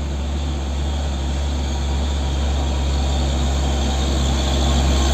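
A motor running steadily: a loud, even hum with a hiss over it, growing slightly louder toward the end.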